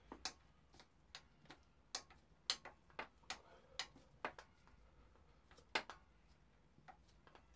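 Irregular sharp clicks and taps, about fifteen of them, from hands and tools working at a Yamaha XJR1300's inlet rubbers and their clamps.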